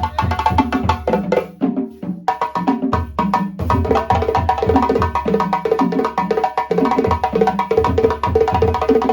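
Balafon playing a fast, busy melody of struck wooden-bar notes over a drum beat, with two short breaks in the playing in the first four seconds.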